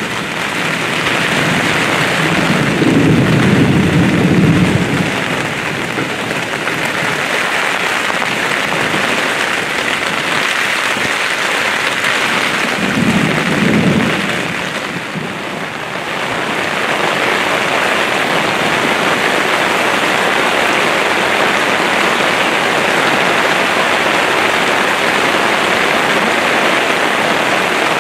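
Heavy thunderstorm rain pouring steadily, with thunder rumbling low twice, about three seconds in and again around thirteen seconds.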